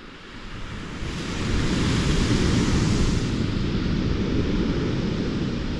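Waves breaking on a shingle beach: the rushing surf noise swells about a second in, peaks, and then eases off.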